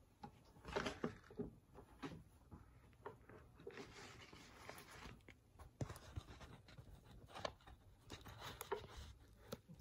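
Faint scattered rustles and light taps of work at an easel: a paintbrush moving on a cotton canvas panel, with a few sharp clicks.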